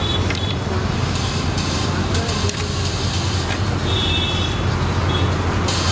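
Steady street background noise, with road traffic running underneath and a constant low hum. Faint indistinct voices and a few light clicks sit on top.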